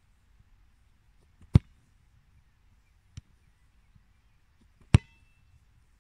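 Two sharp thuds of a foot kicking orange rubber balls on grass, about three and a half seconds apart. The second has a brief ringing ping from the ball. A fainter knock comes between them.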